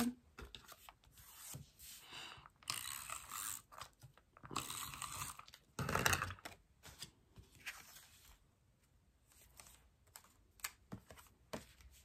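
Paper and card stock being handled on a tabletop: several rustling, sliding swishes, the loudest about six seconds in, then a few light taps and clicks as the paper is set down and pressed.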